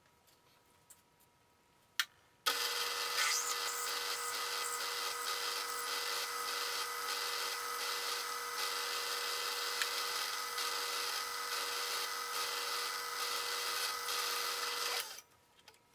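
Vertical milling machine's spindle starting up about two and a half seconds in and running steadily with a pitched whine while a twist drill bores into an aluminum block, then shutting off shortly before the end. A single click is heard just before it starts.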